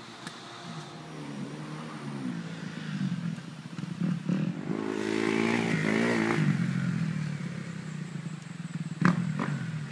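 Motocross dirt bike engine revving as the bike rides round the track. The pitch rises and falls with the throttle, and it builds to its loudest around the middle before easing off. A couple of sharp clacks come near the end.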